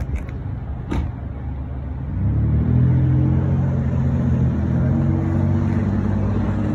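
A motor vehicle engine running close by: a steady low hum that grows louder about two seconds in and then holds. Two sharp knocks come in the first second.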